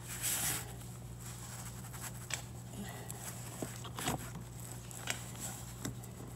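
Cord being drawn out of a rubber window seal to lip it over the tailgate frame as the glass is pressed in: a short rustle, then scattered faint scrapes and clicks, over a steady low hum.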